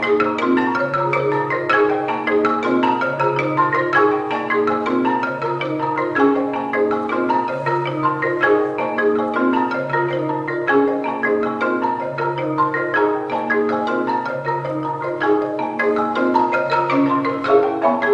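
Percussion ensemble playing mallet keyboard instruments: busy, repeating patterns of struck notes over longer low notes that return about every two seconds.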